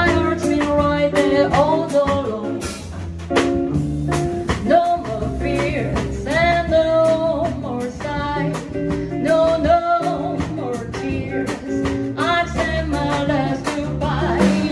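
Live small-combo jazz: an upright double bass walks under a drum kit played with steady cymbal time, a hollow-body archtop electric guitar plays chords, and a female voice sings held, wavering notes over the band.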